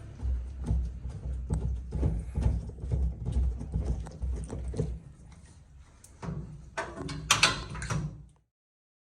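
Washing machine's drive motor humming with rapid irregular knocking as the tub shakes, while the pulsator does not turn: the sign of a broken or slipped drive belt. A louder clattering burst comes near the end, and then the sound cuts off abruptly.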